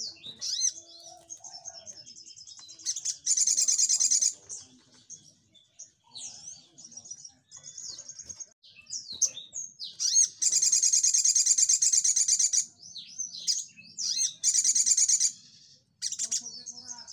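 Olive-backed sunbird (sogok ontong) singing: high, quick chirps and twitters broken by three loud, very rapid trills. The first trill comes about three seconds in, the longest (about two seconds) about ten seconds in, and a short one near fifteen seconds. These trills are the fast 'shooting' song (nembak) that keepers prize.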